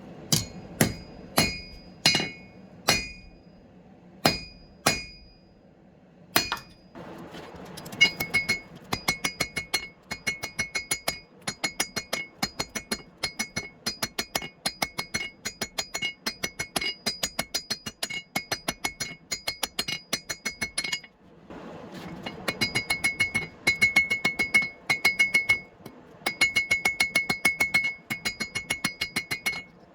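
Hand hammer striking steel on an anvil, each blow ringing. First come about nine slow, separate blows, then fast, steady hammering of several blows a second, broken by a short pause about two-thirds of the way through.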